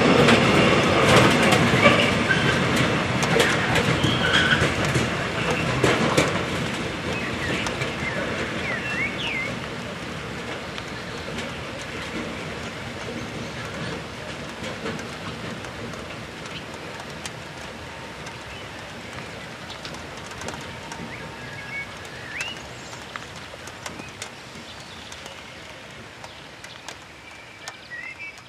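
Freight train of high-sided open wagons running past, wheels rumbling and clicking over the rail joints, fading steadily as the last wagons draw away. A few short bird chirps come through as it dies away.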